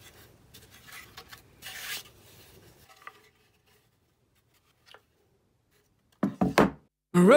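A figured maple board being handled and slid on a plywood workbench. The wood rubs and scrapes with a few light knocks for about three seconds. A few short, louder sounds come near the end.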